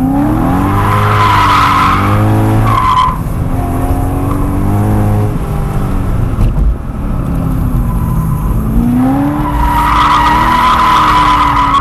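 2011 BMW E90 M3's V8 engine revving up and down through hard cornering, heard from inside the cabin. The tyres squeal as the car slides into oversteer, about a second in and again near the end.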